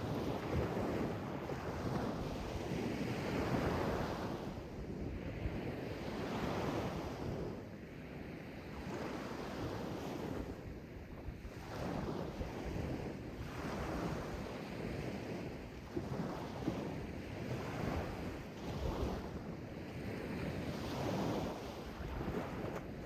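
Sea waves washing in and drawing back in surges every couple of seconds, with wind on the microphone.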